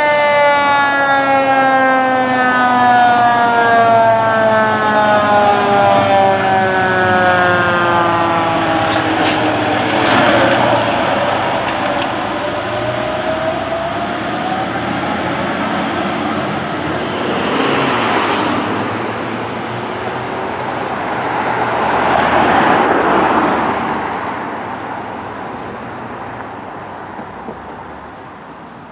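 Pierce fire engine responding with its siren on: the siren winds down in one long, slow fall in pitch over the first nine seconds or so. Then comes the truck's engine and road noise, with a brief high rising whistle about halfway through and louder swells later, fading as the engine drives away near the end.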